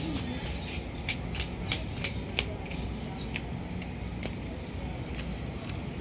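Outdoor urban background noise: a steady low rumble with scattered short, sharp clicks and taps at irregular intervals.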